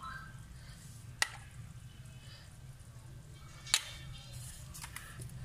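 A spoon spreading sauce on a ceramic plate, with two sharp clicks of the spoon against the plate, the second louder, over a low steady hum.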